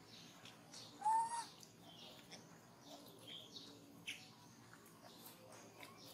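Baby macaque giving one short, high squeaking call about a second in, followed by a few much fainter chirps.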